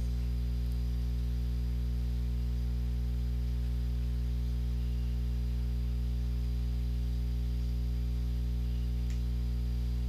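Steady electrical mains hum, buzzy with many evenly spaced overtones, over a faint hiss.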